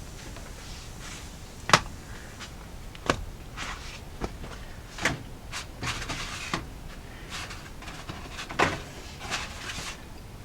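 Scattered knocks and clicks of kitchen items being handled on a counter, with four sharper knocks among them and some brief rustling.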